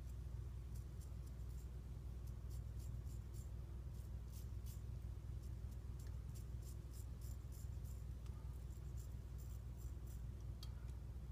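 7/8 straight razor (Riccardo Tonarini Lobster) shaving the upper lip in short, quick strokes, each stroke a faint crisp scrape through lathered stubble, many in a row, over a steady low hum.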